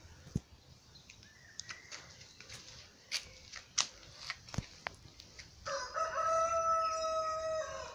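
A rooster crowing once: one long call of about two seconds near the end. Before it, scattered light crackles and ticks.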